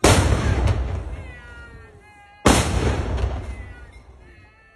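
Ceremonial salute guns firing two rounds about two and a half seconds apart. Each shot is a sudden loud boom that echoes and fades away before the next.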